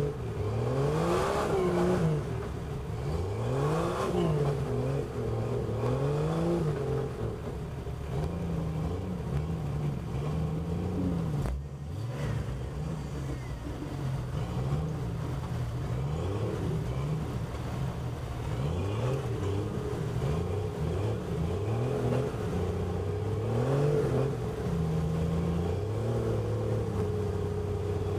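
Off-road vehicle engine revving up and down in repeated short throttle blips, as when crawling over rocks, settling to a steady idle near the end.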